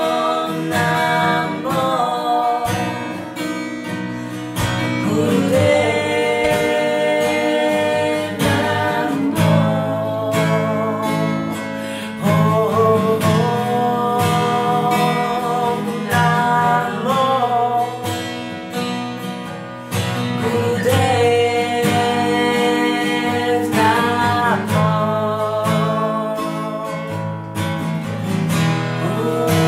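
Acoustic guitar played under women's voices singing a mantra in long held notes that waver and slide between pitches.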